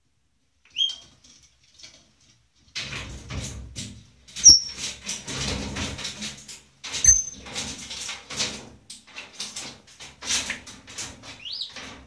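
African grey parrot giving several short whistles, some rising in pitch, with irregular flapping and scuffling noise close to the microphone from about three seconds in as the bird comes down to the phone.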